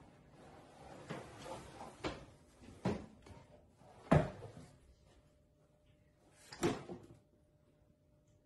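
Small cardboard box knocked and scraped across a wooden floor by a playing cat: a series of separate knocks and scuffs, the loudest a little after four seconds in and another near seven seconds.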